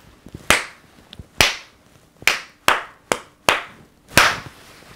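One person clapping his hands: about seven sharp, separate claps at an uneven, slow pace.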